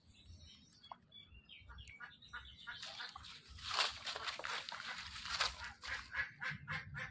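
A dog sniffing and snuffling hard with its nose pushed into loose dirt and leaf litter while it digs. The sniffs come quick and noisy, about four a second in the second half.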